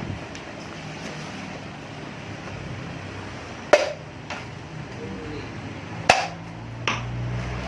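Sharp taps on the husk of a nam hom (aromatic) coconut, struck to judge from the sound whether the flesh is young and soft or mature. There are four taps, the loudest two about two and a half seconds apart, the last two close together.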